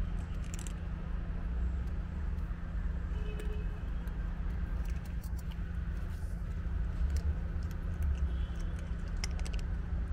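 Cats crunching dry kibble off paving stones: scattered small crisp clicks, thickest near the end, over a steady low rumble.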